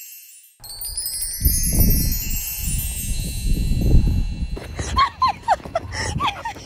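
A shimmering chime sound effect, a rising sparkly sweep, starts about half a second in and rings for about four seconds over a low rumble. After that a dog, a white Jindo–Pungsan mix, whines with short high yips among quick clicks.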